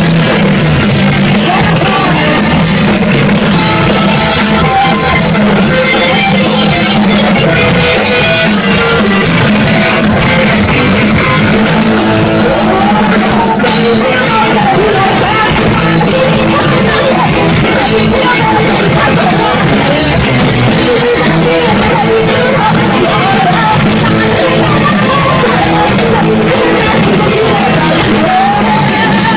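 Live rock band playing loud and without a break: electric guitars, bass and drum kit, with a singer's voice over them.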